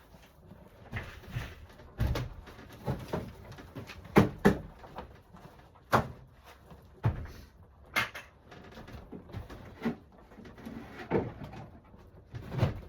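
A series of irregular knocks and thumps, roughly one every second, with the loudest a few seconds in.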